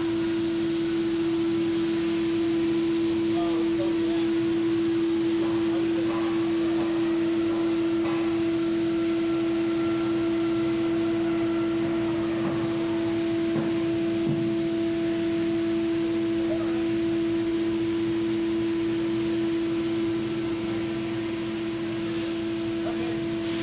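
MultiCam 5000 Series CNC router running at a steady speed, a constant whine over a steady rush of noise.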